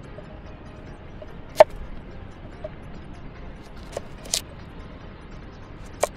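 Steel cleaver slicing a cucumber, the blade knocking on the chopping board in four sharp, widely spaced strokes, the loudest about one and a half seconds in, over a steady low hiss.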